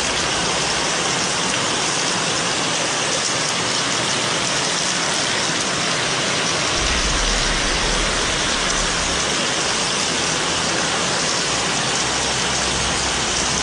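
Heavy rain falling in a steady, even hiss. A low rumble joins it for about two seconds, some seven seconds in.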